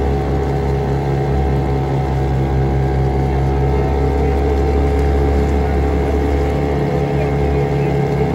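Motorboat engine running at a steady speed, a continuous low hum with an even drone and no change in pitch.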